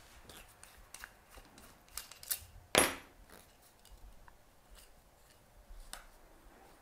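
Faint metal clicks and small taps from an airbrush being handled and fiddled with in the hands, with a sharper knock a little under three seconds in.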